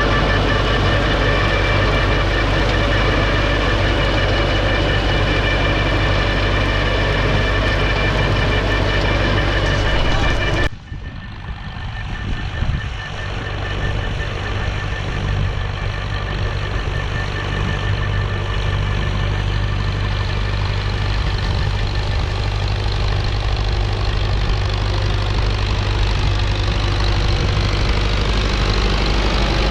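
An engine running steadily. About 11 s in the sound cuts off abruptly and comes back quieter, then rises again over a few seconds.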